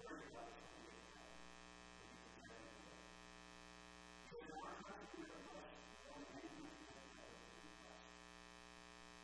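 Near silence under a steady electrical buzz, like mains hum on the sound system, with faint, indistinct voice near the start and again about four to five seconds in.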